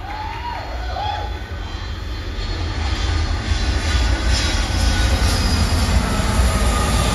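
A deep, steady rumble over the theatre's sound system, building in loudness, with a hiss above it: a scene-change sound effect as the stage goes dark. A few short calls from the audience near the start.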